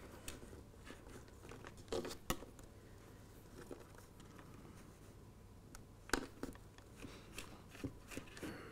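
Faint handling noise of thin wires and a length of flexible model railway track: soft rustles with a few light clicks, two about two seconds in and a few more in the second half.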